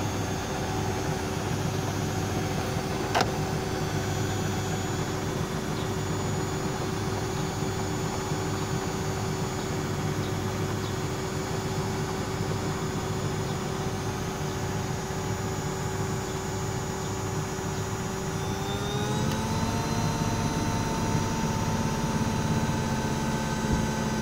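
Zanussi front-loading washing machine on a spin with its drum full of suds: a steady motor whine and drum hum that rises in pitch and gets a little louder about 19 seconds in as the spin speeds up. A single short click about 3 seconds in.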